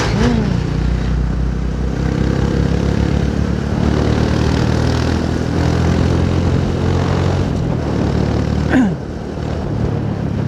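Motorcycle engine running steadily while riding, heard from the rider's seat. A brief sound slides down in pitch close to nine seconds in.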